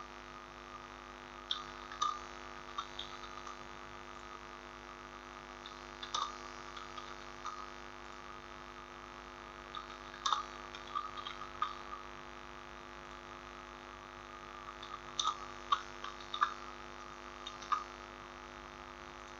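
Steady electrical mains hum under scattered computer mouse clicks, which come singly and in small groups.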